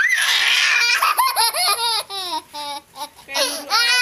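Little girl laughing: a breathy shriek at the start, then runs of short high-pitched laughs.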